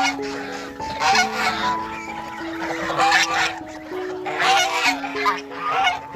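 Domestic geese honking, several short calls one after another, over background music of slow held notes.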